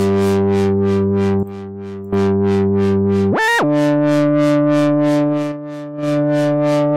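Arturia Mini V3 software Minimoog lead synth playing held low notes, driven hard through Ableton's Saturator on its soft-sine curve; it is a lot louder. The notes break off briefly about a second and a half in, then a quick glide up and back down lands on a new held note, with an even tick about four times a second above it.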